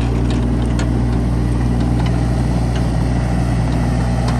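John Deere 17ZTS mini excavator's three-cylinder Isuzu diesel idling steadily.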